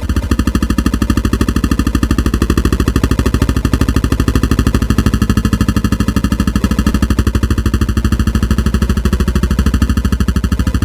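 A steady, fast, even mechanical rattle, like a small motor or machine running.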